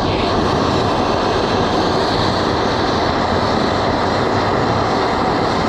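Gas blowtorch flame burning with a steady, loud rushing hiss while it heats a piece of metal held in tongs.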